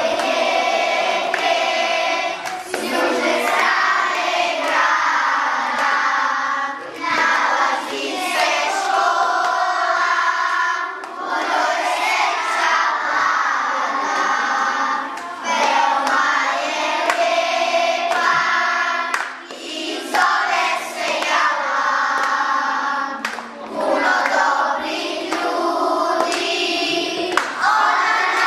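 A group of young schoolchildren singing a song together in unison: their school anthem, sung in phrases a second or two long.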